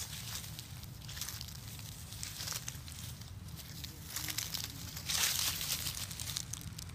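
Dry fallen leaves crackling and rustling underfoot in irregular bursts, loudest about five seconds in.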